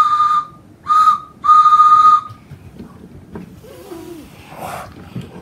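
A whistle blown as a steam-train whistle sound effect: a few toots at one steady high pitch, the last one longer, stopping about two seconds in.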